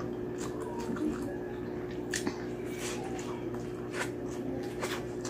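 Wet mouth smacks and chewing while eating rice and pork humba by hand: irregular short clicks and squelches over a steady low hum.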